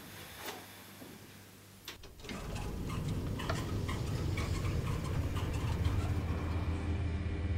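Elevator car running: after a couple of faint clicks, a low steady hum sets in about two seconds in, with light irregular ticking over it.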